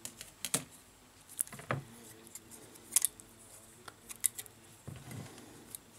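Scattered small clicks and taps as a replacement smartphone display module and the phone's frame are handled on a workbench.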